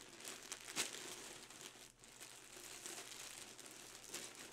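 A shipping package being pulled open by hand, its wrapping crinkling and crackling, with a brief lull about two seconds in.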